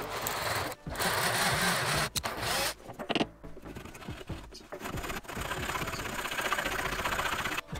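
Electric drill running a twist bit into a softwood block for the first couple of seconds. Then a round file rasps back and forth inside the fresh hole, with quick, even strokes in the second half.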